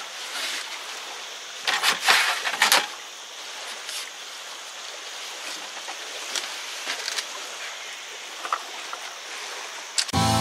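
Shelf panels being handled and slid into a folding fabric camp kitchen cupboard: rustling with light knocks and clicks, and a louder burst of rustling and clatter about two seconds in, over a steady background hiss. Acoustic guitar music starts near the end.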